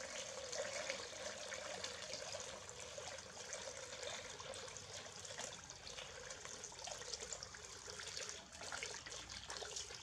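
Water trickling steadily from a barrel's tap into a plastic basin of water.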